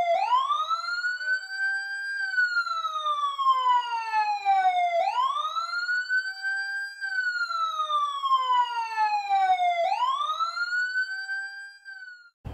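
Police siren wailing in slow cycles, each a rise of about two seconds followed by a fall of about three, heard three times before it cuts off.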